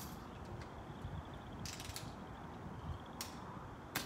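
Quiet background with two brief hisses, then near the end a single sharp snap: a BB gun firing.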